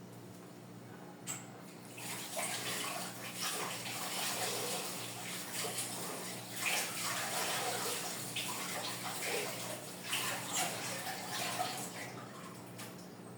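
Water running from a tap and splashing as something is rinsed, starting about two seconds in, uneven with surges, and tailing off near the end.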